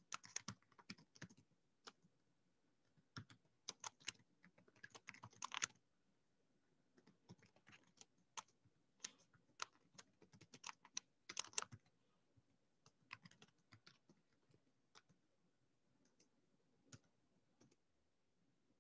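Faint typing on a computer keyboard: quick runs of keystrokes in bursts, busiest in the first twelve seconds, then slower and more scattered.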